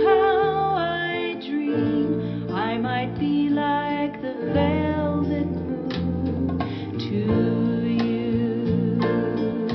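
Recorded music played through KEF Q300 loudspeakers: a stretch of a soft song with plucked acoustic guitar and bass between sung lines, a held wavering note trailing off in the first second.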